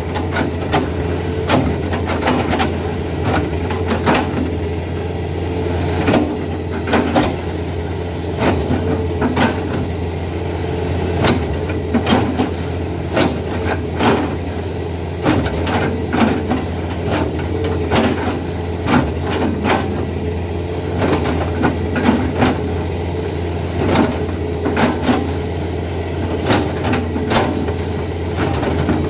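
Hydraulic excavator's diesel engine running steadily, with repeated sharp knocks, roughly one or two a second, as its knife bucket chops into a felled oil palm trunk.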